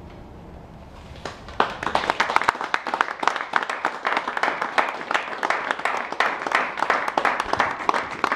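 Audience applauding. The clapping breaks out about a second and a half in and carries on as a dense, steady patter of claps.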